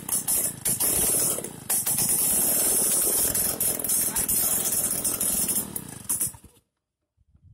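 Small air-cooled petrol engine running, a loud rough rattle with strong hiss, cutting off suddenly near the end.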